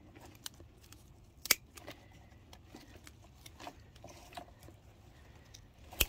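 Scattered small clicks and snaps of hands working an orchid's roots and sphagnum moss free of a plastic mount, the loudest snap about a second and a half in.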